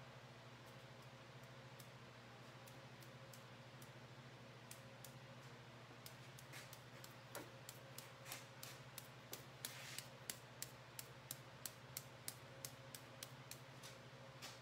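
Light, sharp taps of an ebru marbling brush being struck to sprinkle drops of yellow paint onto the marbling bath. The taps come sparsely at first, then from about the middle run at about two to three a second, over a faint steady low hum.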